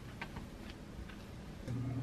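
A few light crinkles and ticks of plastic wrap as cling-wrapped sweet-potato rolls are handled on a wooden cutting board. Near the end an air fryer's fan starts a steady, louder hum with a low drone and a higher whirr.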